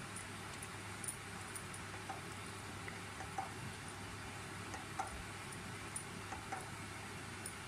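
A wooden spatula stirring and scraping a thick, bubbling milk-and-coconut halwa mixture in a nonstick pan. The reducing mixture spatters, giving scattered small pops and ticks over a steady hiss and low hum.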